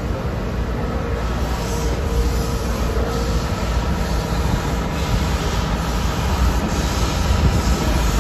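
Steam-hauled excursion train behind Southern 2-8-2 Mikado No. 4501 rolling slowly, heard from an open car: a steady rumble of wheels on rail with a faint squeal of wheels against rail.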